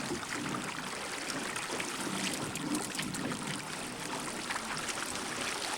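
River water rushing and trickling steadily around a drifting boat, with scattered small ticks and splashes.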